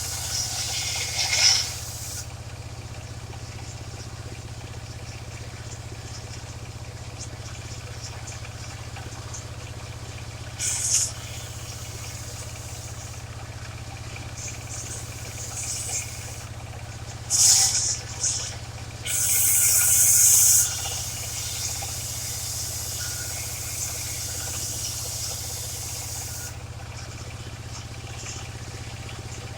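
Engine of a mobile circular sawmill running steadily at a low hum, with a few short, sharp hissing scrapes over it, the longest lasting about one and a half seconds about two-thirds of the way through.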